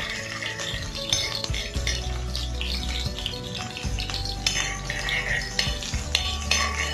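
Background music with steady low notes, over a utensil stirring and clinking against the pan as green chillies fry in coconut oil.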